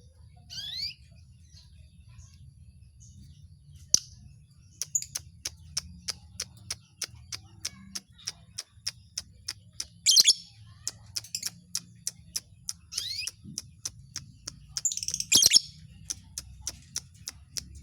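Small birds calling: a few short sweeping chirps and, from about four seconds in, a run of sharp ticking notes about two a second.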